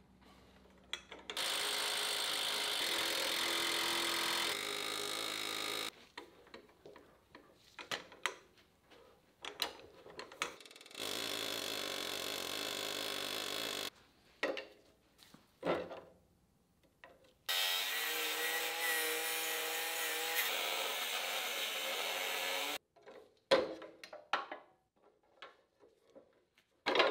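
A power tool runs in three steady bursts of about four to five seconds each, starting and stopping abruptly. Short knocks and clicks of hand-tool work on rusty metal fall between the bursts.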